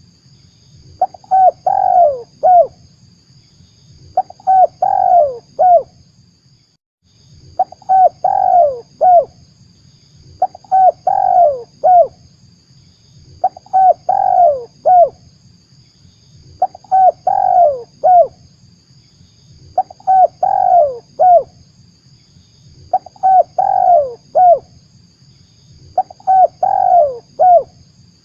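Spotted dove cooing as a trapping lure call: a short phrase of about four notes, the middle ones falling in pitch, repeated roughly every three seconds, nine times.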